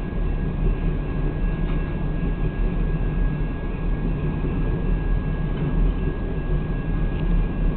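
BNSF freight train's cars rolling steadily past a grade crossing, an even low rumble heard from inside a stopped car, with a steady high tone running through it.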